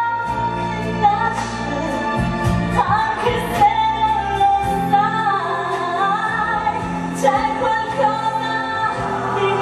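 A woman singing a song from a stage musical over musical accompaniment, recorded live in the theatre.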